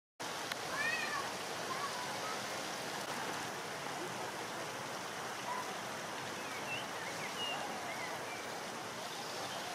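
Water in a vortex fountain's steel bowl swirling into a whirlpool and draining through the centre hole: a steady rushing, with short high chirps and squeaks scattered over it. It cuts in suddenly just after the start.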